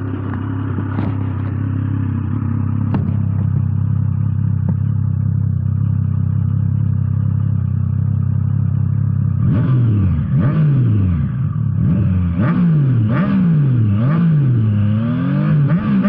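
Triumph Trident 660's liquid-cooled 660 cc three-cylinder engine idling steadily through its stock exhaust. About ten seconds in it is blipped on the throttle in a string of quick revs, each rising and falling, roughly one a second.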